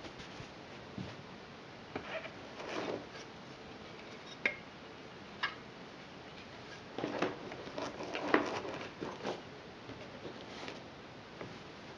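Handling noise from a hard plastic carrying case with foam inserts: foam rustling and scattered light clicks and knocks as a plastic power adapter and its cable are lifted out and set back in, busiest around seven to nine seconds in.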